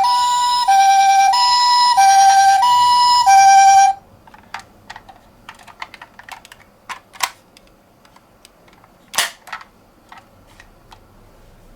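Toy ambulance's electronic two-tone siren, alternating high and low about every two-thirds of a second, which cuts off suddenly about four seconds in. After that come scattered light clicks and taps, with a sharper knock about nine seconds in.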